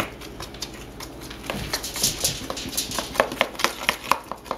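Thick ground chocolate-coconut paste being scraped out of a plastic bowl: a run of irregular short scrapes and light clicks.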